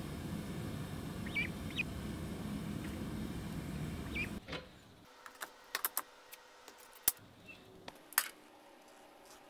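A white domestic duck gives a few short high calls over the steady low rush of a propane-fired melting furnace. About halfway through, the furnace sound drops away and a steel spoon clinks sharply a few times against a pan.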